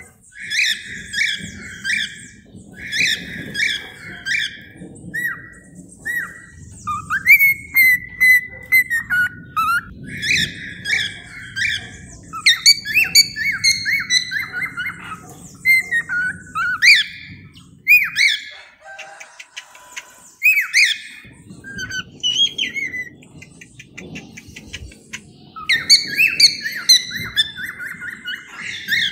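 Cockatiels chirping and whistling in quick repeated short calls over a faint low background noise, easing into a brief lull a little past the middle before picking up again.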